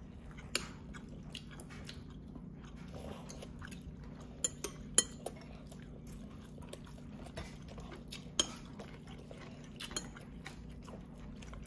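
Eating utensils clicking against plates and bowls at a meal: scattered sharp clinks, a quick cluster of three about halfway through, over a steady low hum.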